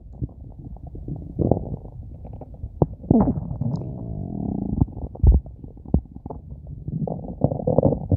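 A hungry stomach growling and gurgling, with irregular sharp pops and squelches and a longer bubbling rumble in the middle.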